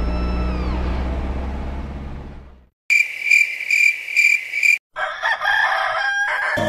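Background music fades out over the first couple of seconds. After a brief silence comes a high, evenly pulsing chirp, about two pulses a second for two seconds, like insects at night. Then a rooster crows, marking daybreak.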